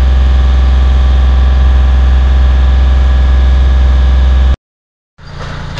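Loud, steady drone of a construction machine's engine running close by, heavy in the bass and distorted. It cuts off abruptly about four and a half seconds in, and after a short silence a quieter engine idles.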